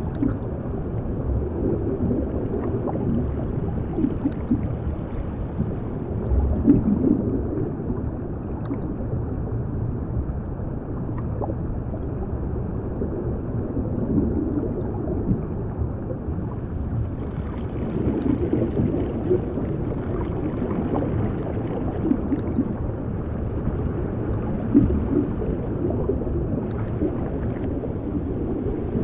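Muffled underwater ambience: a deep, steady rumble of water with bubbling and gurgling that swells every few seconds, as heard by a microphone submerged in the water.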